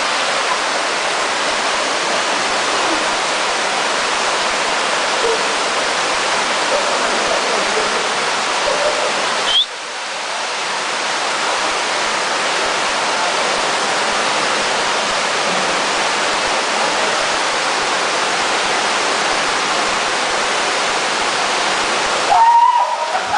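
Water rushing down a waterfall, a steady loud roar of falling water that dips briefly about ten seconds in.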